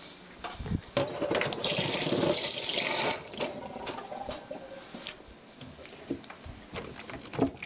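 A kitchen tap running for about two seconds, then a few light knocks and clinks.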